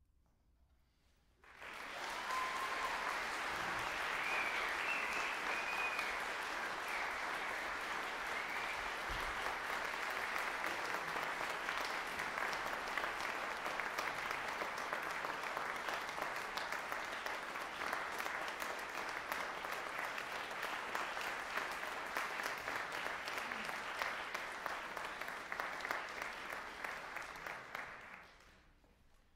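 Concert audience applauding. The clapping starts suddenly after a moment of silence, holds steady with a few short cheers in the first few seconds, and dies away near the end.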